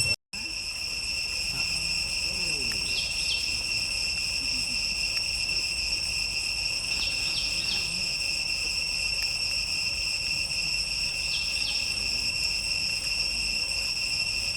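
Steady, high-pitched drone of a chorus of insects, with a short double chirp about every four seconds. The sound drops out for an instant just after the start.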